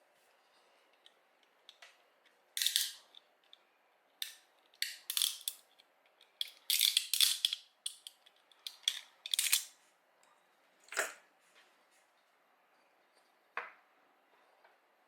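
Irregular short clicks and scraping snaps of 3D-printed plastic parts being handled and worked by hand, in clusters through the middle, with a last click near the end.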